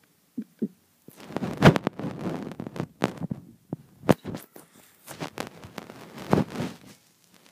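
Handling noise: irregular rustling and sharp knocks close to the microphone, with two short taps just before it starts in earnest, ending about a second before the end.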